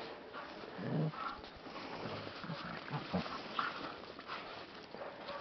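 Dogs vocalizing in rough play: short, low vocal sounds about a second in and a cluster of them around three seconds, with a few brief higher cries between.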